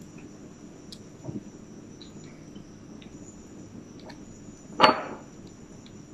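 Light taps and knocks as crushed eggshell is dropped by hand into a plastic bottle of vinegar, with one sharp, louder knock about five seconds in. A steady high-pitched whine runs underneath.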